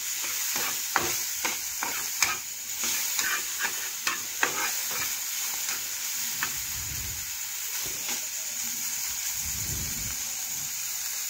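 Pieces of pointed gourd sizzling in hot oil in a nonstick frying pan while a spatula stirs and turns them, clicking and scraping against the pan. The spatula clicks come mostly in the first half.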